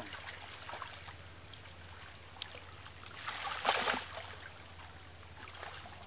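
Wet cast net being hauled through a shallow pond: water trickling and dripping off the mesh, with one louder splash about three and a half seconds in. A faint steady low hum runs underneath.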